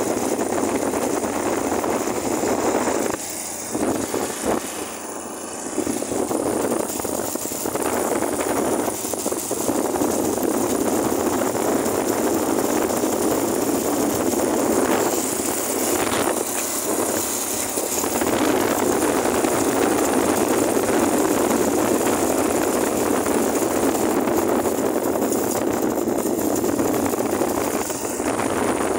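Steady rush of wind and road noise from a vehicle moving along a road, dipping for a few seconds early on and briefly near the end.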